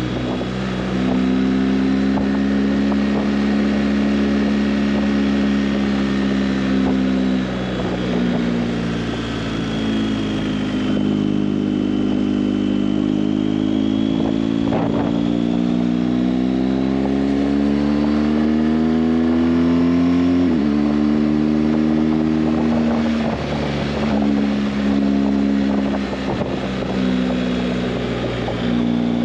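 Motorcycle engine running under way, its pitch rising and falling with the throttle. The pitch drops sharply at a gear change about twenty seconds in.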